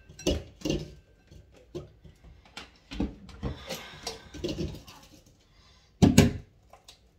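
Kitchen handling sounds: scattered knocks and clicks of utensils and containers, with one louder clatter about six seconds in.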